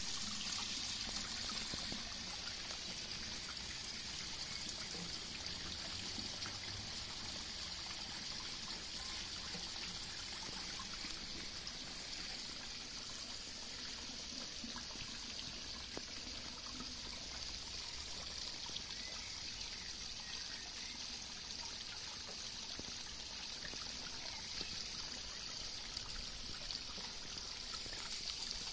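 Water falling from an Aquascape pond spillway into a garden pond, pouring steadily without a break.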